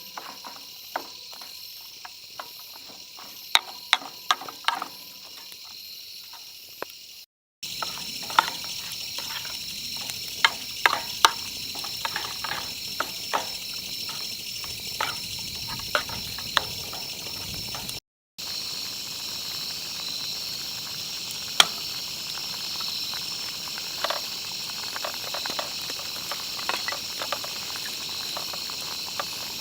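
Food sizzling and frying in a pan over a campfire, with sharp pops and crackles scattered over a steady high hiss. The sound drops out briefly twice.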